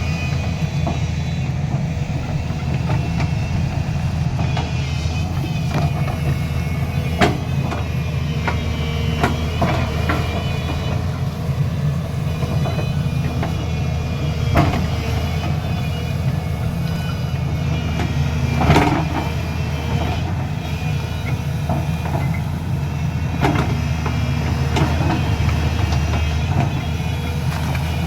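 Caterpillar 323D3 excavator's diesel engine running steadily, with sharp knocks now and then as the machine works; the loudest knock comes about two-thirds of the way in.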